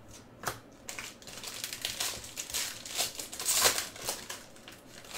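Foil-and-plastic trading card pack wrapper being pulled open and crinkled by hand, with a sharp crackle about half a second in, then a run of crinkling that is loudest around three and a half seconds in.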